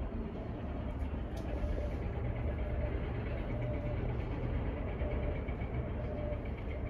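Domestic cat purring steadily while being stroked on the head and back, a low continuous rumble that grows a little stronger about two seconds in.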